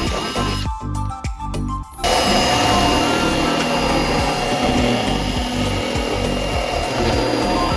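A handheld power tool runs steadily from about two seconds in, over background music, just after a brief lull with a few clicks.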